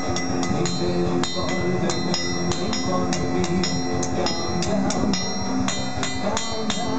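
Music with a steady, quick beat over sustained chords.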